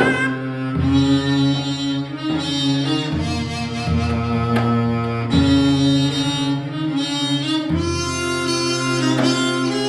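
Korean traditional quartet music led by the dae-ajaeng, a large bowed zither, playing sustained low notes that change every second or two.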